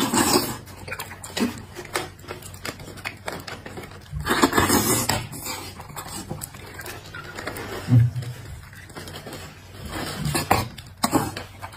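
Close-up eating sounds: sucking and slurping marrow from a roasted marrow bone, with a small metal spoon scraping and clicking against the bone. There are two longer slurps, one at the start and one about four seconds in, and scattered clicks near the end.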